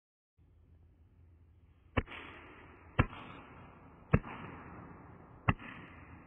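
Four gunshots about a second apart, each followed by a fading rush of noise, over a low rumble.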